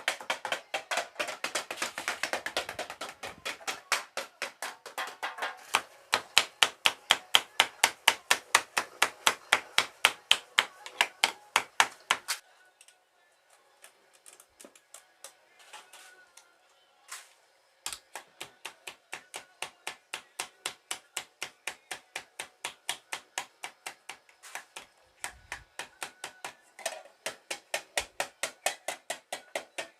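Rapid, regular hammering on sheet aluminium, about three sharp metallic strikes a second, as llaneras are formed by hand. The strikes stop for about five seconds near the middle, with only a few single knocks, then start again at the same pace.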